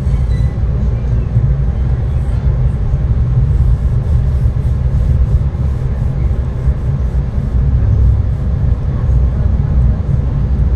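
Inside a moving passenger train: a steady low rumble of the running train and its wheels on the rails, with no distinct events.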